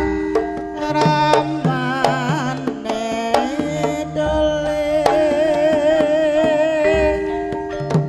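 Javanese gamelan ensemble playing a tayub gending: held metallophone and gong notes with a wavering melody line over them, punctuated by regular drum strokes.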